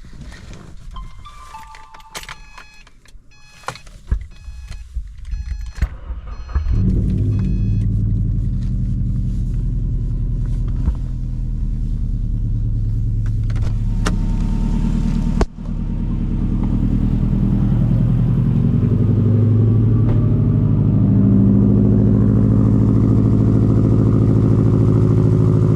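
Electronic chimes and clicks from the car, then about a third of the way in the 2011 Subaru WRX's turbocharged flat-four engine starts and settles into a steady idle while it warms up.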